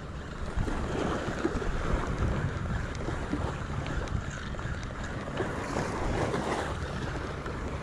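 Steady wind buffeting the microphone, with surf washing on the beach.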